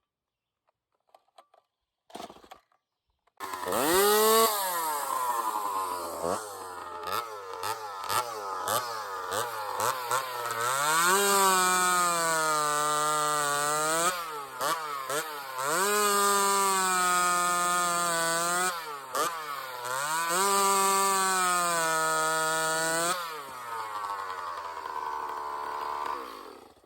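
Ported 62 cc two-stroke chainsaw, running on a 110-octane race fuel mix, starts about three and a half seconds in and runs at full throttle in several spells, its pitch sagging and recovering as it cuts wood. Near the end it drops to a lower note and shuts off.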